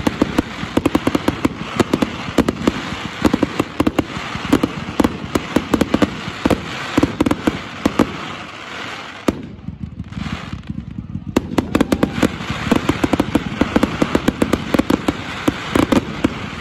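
Aerial fireworks going off in a rapid, dense barrage of bangs and crackles. The barrage breaks off for about two seconds around nine seconds in, then resumes just as densely.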